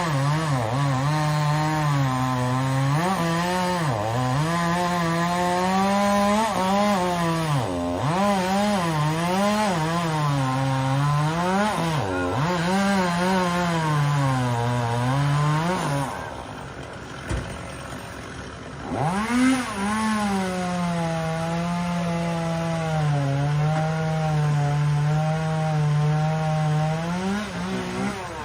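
Two-stroke chainsaw cutting pine, its engine pitch sagging and recovering again and again as the chain loads up in the wood. About sixteen seconds in it drops back toward idle for a few seconds, then revs up sharply and cuts at a steady pitch until it eases off near the end.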